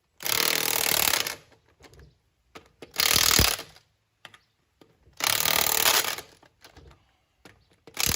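Impact wrench driving lug nuts onto a car wheel in short bursts of about a second each, four times, working round the wheel in a star pattern.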